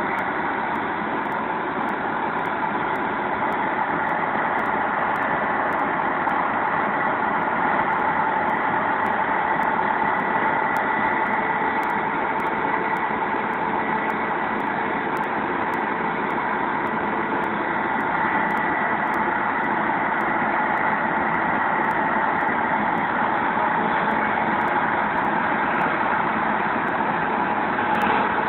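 Farm tractor engine running steadily, at an even speed with no revving.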